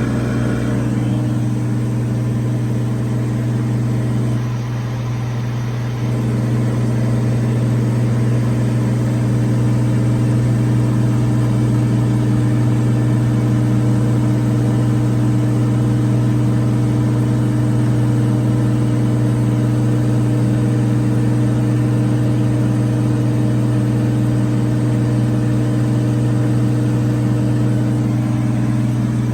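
Cirrus SR22's six-cylinder piston engine and propeller droning steadily in the cabin, a constant low hum that dips slightly for about a second and a half near the start.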